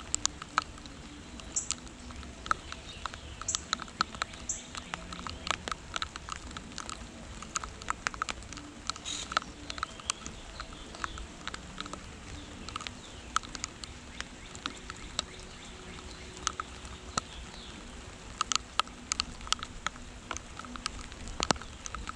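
Rain falling, with irregular drops pattering and ticking sharply on a nearby surface over a steady hiss. A few short, high bird chirps come through now and then.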